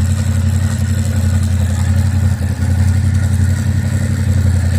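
Yamaha Ténéré 700's parallel-twin engine running steadily at idle. The owner hears an annoying noise that he traces to the front sprocket, with the chain tension already checked.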